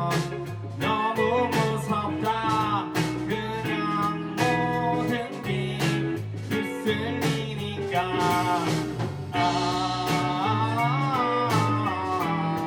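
A live band playing a song: singing over guitar, with regular drum hits.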